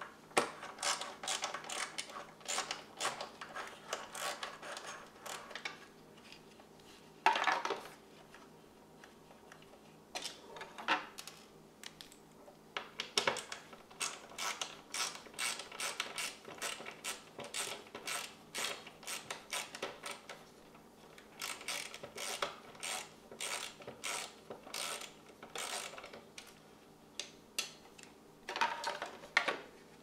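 Screwdriver turning screws out of an espresso machine's plastic housing: runs of quick, regular clicks, about three or four a second, broken by short pauses. One louder knock about seven seconds in, and another near thirteen seconds.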